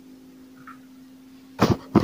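Kitchen knife chopping broccoli on a plastic cutting board: two sharp, loud chops near the end, over a faint steady hum.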